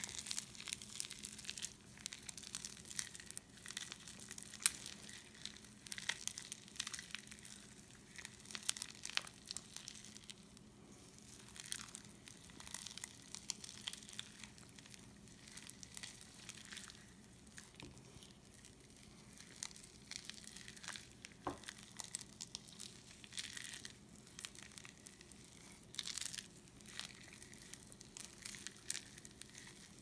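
Foam-bead slime (floam) being squeezed and kneaded by hand, the tiny foam beads giving off fine, irregular crackling in quick clusters.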